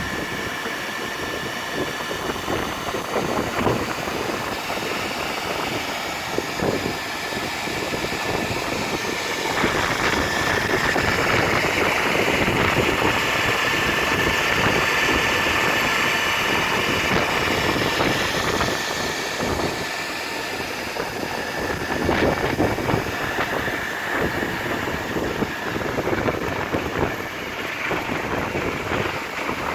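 Portable line boring machine running on a JCB excavator's pivot bore: a steady machine whine over rough mechanical noise, which gets louder and fuller from about a third of the way in to about two thirds in.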